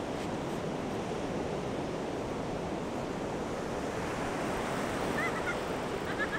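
Ocean surf breaking and washing up a beach as a steady rush, with wind buffeting the microphone. A few faint, short, high chirps come near the end.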